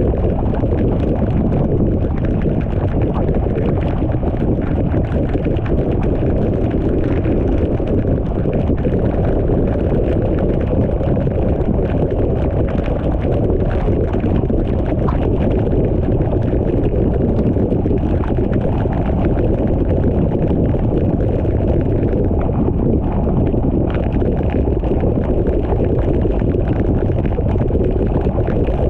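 Steady road noise of a car driving on a rain-soaked road, with tyre hiss on the wet surface and wind rumbling on the microphone.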